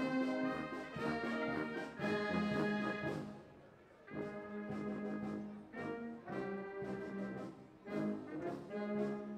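A wind band of brass and flutes playing a tune in held notes, with a short break about three and a half seconds in before the playing picks up again.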